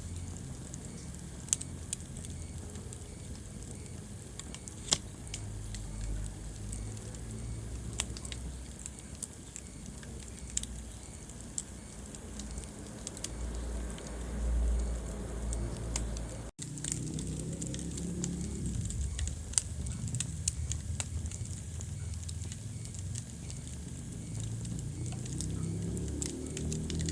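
Wood fire crackling in a fireplace: irregular sharp pops and snaps over the low rumble of the flames. The sound cuts out for a moment about two-thirds of the way through.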